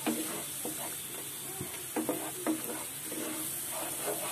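A watery spice paste with fried onions sizzling in oil in a frying pan, with a spatula stirring and scraping through it a few times. The ground spices are being fried down until the raw smell goes.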